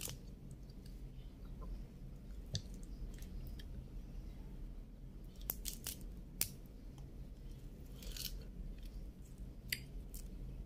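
Cooked shrimp being peeled and eaten at close range: faint chewing with scattered sharp crackles of shell, a cluster of them about five and a half to six and a half seconds in.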